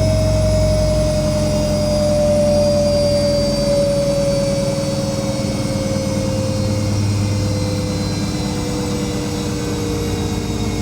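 Whirlpool Indiana 1400 front-loading washing machine spinning at high speed, a steady rumble with a motor whine that slowly falls in pitch as the drum begins to slow.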